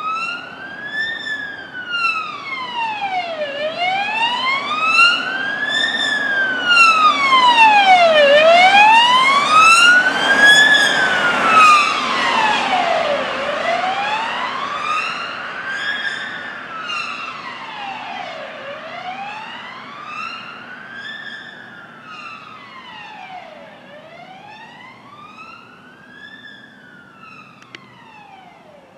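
UK ambulance siren on a slow wail, its pitch rising and falling about every five seconds. It grows louder as the ambulance approaches and passes about ten seconds in, with a rush of road noise from the vehicle, then fades steadily as it drives away.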